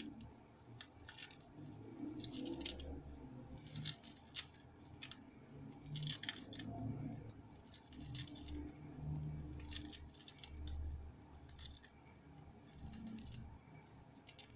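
A small knife slices through a bunch of fresh parsley held in the hand, making a run of short, crisp cuts at an irregular pace, with soft low bumps from handling.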